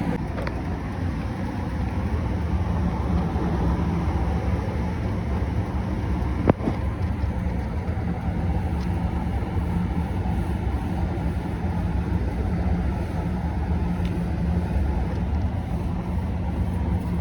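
1988 gas furnace running on test after lighting, a steady low rumble with a faint hum, and one sharp click about six and a half seconds in.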